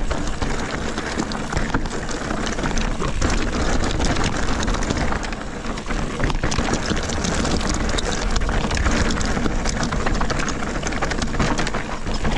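Mountain bike riding down a loose gravel and rock trail: the tyres crunch and crackle over the stones while the bike rattles over the bumps, with a constant low rumble under it.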